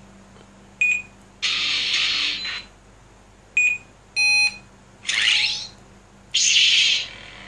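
Lightsaber sound board playing short electronic beeps and three hissing bursts, each about a second long.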